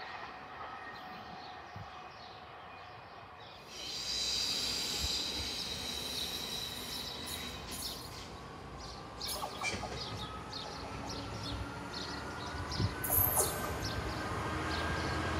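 A Class 66 diesel freight locomotive approaching under power, its two-stroke V12 engine running with a tone that rises slowly. The first four seconds hold the fainter sound of a CrossCountry Voyager diesel train approaching.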